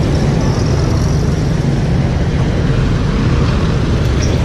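Street traffic: a steady low rumble of vehicle engines and road noise.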